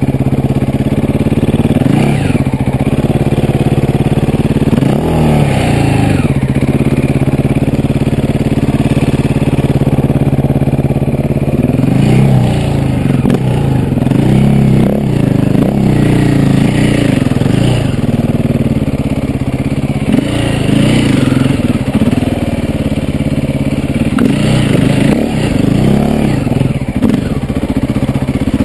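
KTM EXC enduro motorcycle engine pulling the bike along a trail, revs rising and falling again and again as the throttle is opened and closed.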